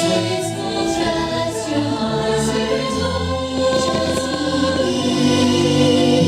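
Choir singing long held notes over orchestral music, the soundtrack of a fireworks show, with slow chord changes.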